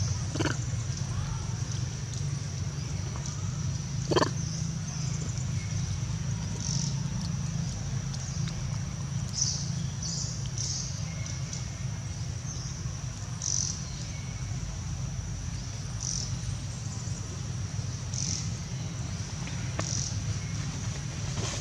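Outdoor ambience: a steady high-pitched insect drone that swells every second or two over a low rumble, with two short sharp sounds in the first few seconds.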